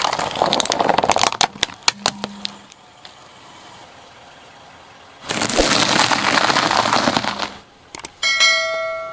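Car tyre rolling onto a red plastic bowl, cracking and snapping it in a quick run of sharp cracks. About five seconds in, two seconds of dense crunching as the tyre crushes a pile of small crunchy puffed pieces. Near the end, a ringing notification ding from a subscribe-button animation.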